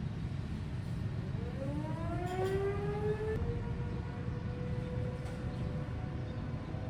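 Outdoor civil-defense warning siren winding up during a test sounding. From about a second in, its tone rises in pitch for a couple of seconds, then holds steady, over a constant low rumble.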